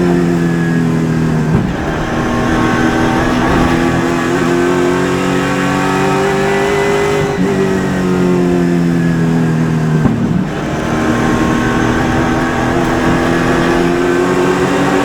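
Super Late Model race car's V8 engine at racing speed, its pitch climbing on the throttle and dropping sharply three times as the driver lifts for the corners, then climbing again.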